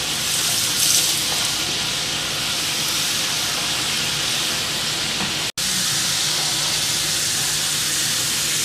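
Potato fries deep-frying in oil in a cast-iron skillet, a steady sizzle. It swells briefly about a second in and cuts out for an instant just past the middle.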